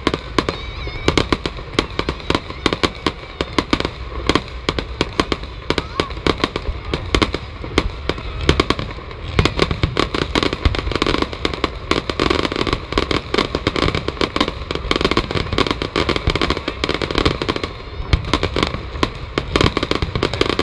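Fireworks display: aerial shells bursting in a rapid, unbroken run of bangs and crackles.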